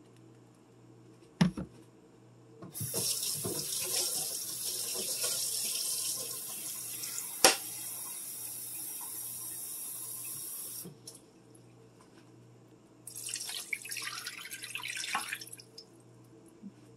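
Kitchen tap running steadily for about eight seconds as a cup is filled with water, with a sharp click partway through. A few seconds later, the half cup of water splashes as it is poured into the bottom of the roasting pan.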